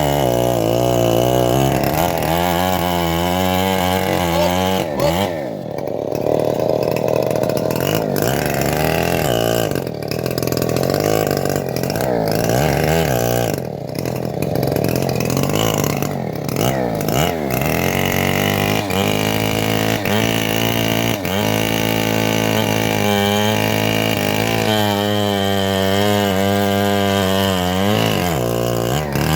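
Engine-driven homemade bandsaw mill running while it saws a teak log, its engine pitch repeatedly sagging under the load of the cut and climbing back.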